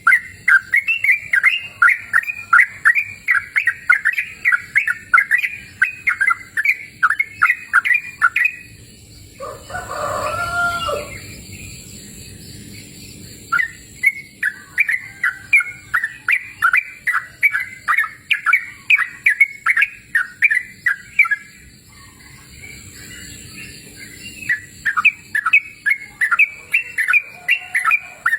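Sooty-headed bulbul (trucukan) singing in three bouts of quick repeated notes, about three to four a second, with short pauses between the bouts. Between the first two bouts comes a single lower, drawn-out call lasting about a second and a half.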